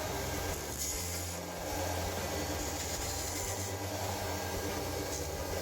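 Small electric power tool running steadily with an even motor hum, grinding down an unbleached bone nut blank.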